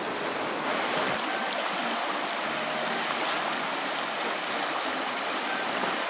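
River water rushing, a steady even noise.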